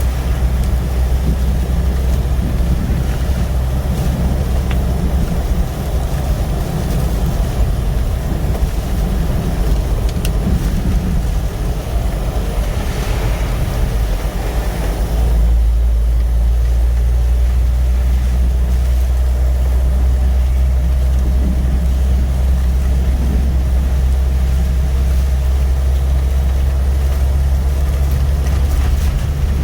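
Low rumble of a Jeep driving, heard from inside the cabin. About halfway through, the rumble becomes steadier and deeper.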